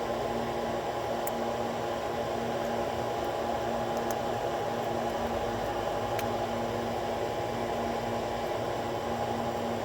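Steady mechanical hum with a hiss, even throughout, with a few faint light clicks over it.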